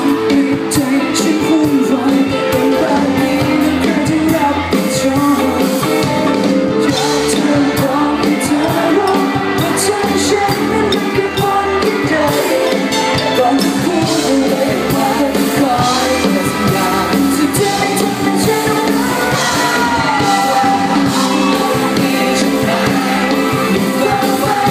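Live band playing loudly with electric guitars and a singer, heard from within the audience on a phone recording.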